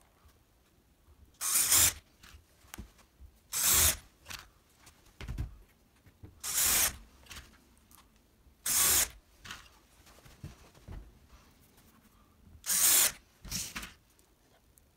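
Cordless drill with a drill-countersink bit boring a row of pilot holes into a wooden board. About six short bursts of drilling, each about half a second long, come roughly every two seconds, with two close together near the end.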